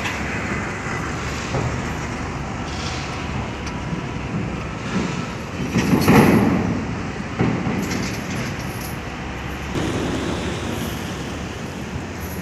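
Container-terminal machinery and vehicle noise: a steady mechanical rumble, swelling louder about six seconds in.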